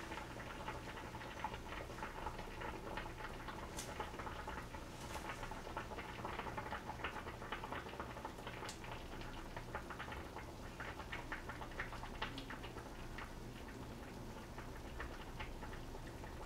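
Seafood soybean-paste stew faintly bubbling in its earthenware pot: a dense, irregular patter of small pops and crackles, over a steady low hum.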